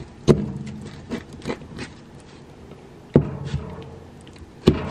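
Metal pizza cutter wheel being forced through a thick deep-dish crust onto the cardboard box beneath: three sharp knocks, about 3 s and then 1.5 s apart, with a few lighter clicks between.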